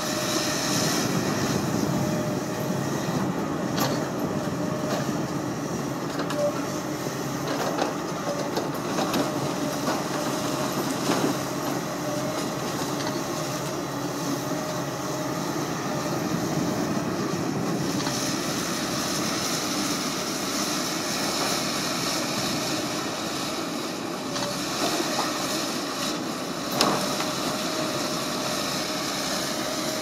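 JCB JS200 LC crawler excavator working with a log grapple: diesel engine and hydraulics running steadily with a thin steady whine, and scattered knocks of wood and steel, the sharpest near the end.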